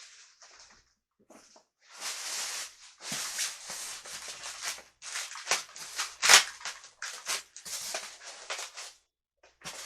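Packaging rustling and crinkling in a run of bursts as a stand mixer part is unwrapped, loudest about six seconds in.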